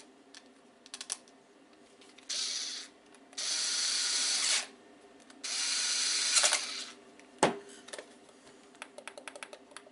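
Small power screwdriver driving the screws back into a plastic Amiga tank mouse case: three runs of the motor, each longer than the last, followed by a sharp knock and a few light clicks.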